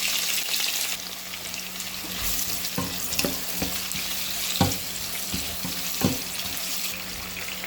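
Onions sizzling as they fry in hot oil in a pan, a steady hiss that eases slightly after the first second. From about three seconds in, a spatula knocks against the pan several times while stirring.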